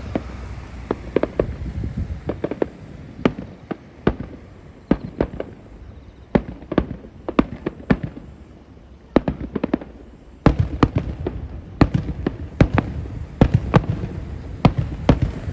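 Fireworks display: shells bursting in a quick run of sharp bangs, thinning out around the middle, then a denser, louder barrage from about ten seconds in.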